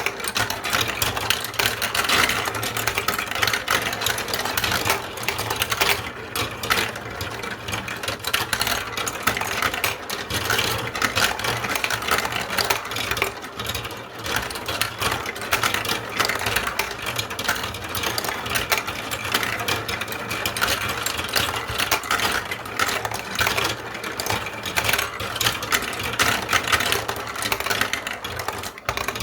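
Many small balls rolling and clattering down a block-coaster marble-run track, a dense, continuous rattle of tiny clicks.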